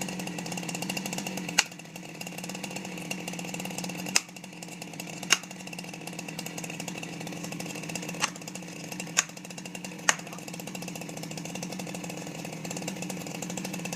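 Chainsaw engine idling steadily, with about six sharp clicks or knocks at irregular intervals through it.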